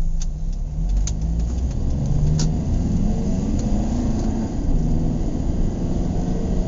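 Car driving, heard from inside the cabin: a steady low engine and road rumble with the engine note shifting a little, and a few sharp clicks in the first few seconds.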